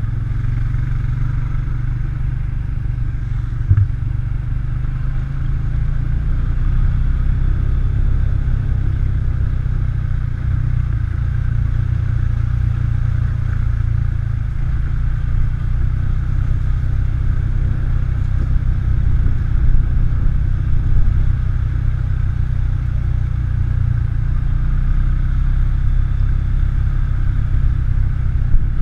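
ATV engine running steadily under way, with a few sharp knocks, one about four seconds in and a couple more later.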